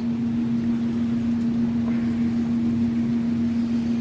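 Steady machine hum with one strong low tone, unchanging throughout.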